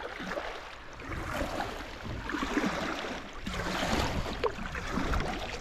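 Water rushing and splashing around a paddled sit-on kayak, swelling and easing about every second.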